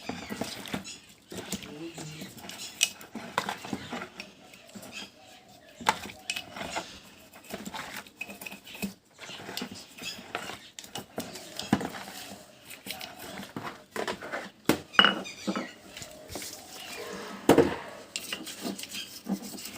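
Motorcycle front brake parts being scrubbed with a brush in detergent water, with irregular scraping, clinks and metal knocks. The cleaning removes oil and dust that make the brake shoes stick.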